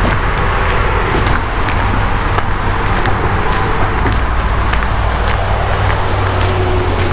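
Sneaker footsteps crunching on a crushed-shell walkway, heard as faint scattered crunches over a steady low rumble.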